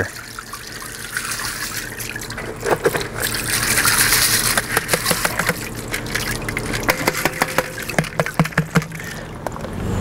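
Wax pellets poured from a plastic tub into a tank of molten wax: a steady pouring hiss that swells in the middle, with many small clicks as the pellets rattle out, thickest near the end.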